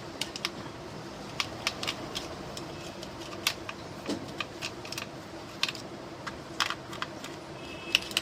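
Irregular small clicks and ticks of a screwdriver working the screws out of a plastic Bluetooth speaker housing.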